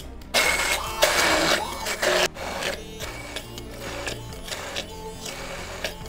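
Stick immersion blender running at top speed in a tall beaker, puréeing cooked celeriac and apple with oil. It whirs loudly with a steady whine for about two seconds, then goes softer.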